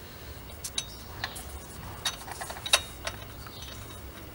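Small metallic clicks and clinks as a new wheel stud is worked into its hole in the rear hub flange: about ten light, irregular ticks, the sharpest one about two-thirds of the way through.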